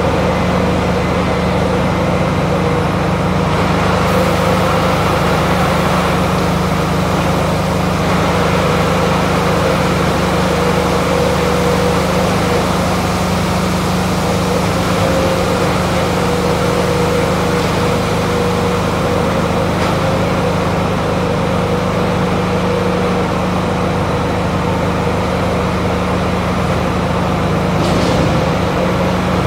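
John Deere tractor engine running steadily at constant revs while driving the hydraulics that raise a tipping trailer to unload grain.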